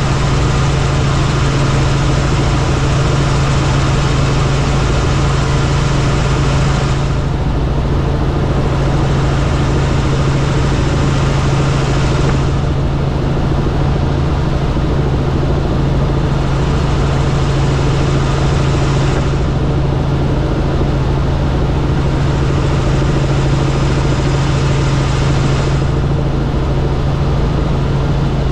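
Helicopter engine and rotor noise running steadily: a strong constant low hum under a dense even rush. Several times the upper hiss dulls for a few seconds, then returns.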